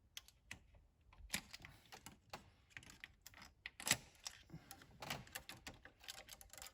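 Irregular light clicks and knocks of plastic clips and connectors as an engine wiring loom is unclipped and pulled off a diesel engine's injectors and glow plugs, with one sharper knock about four seconds in.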